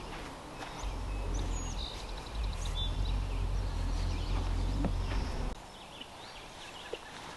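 Open-air ambience: a low rumble on the microphone that stops suddenly about five and a half seconds in, with a few short, high bird chirps in the first few seconds.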